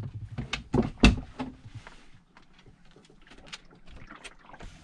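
Two sharp knocks about a second in, then faint scattered clicks and rustles of someone moving about in a small boat cabin.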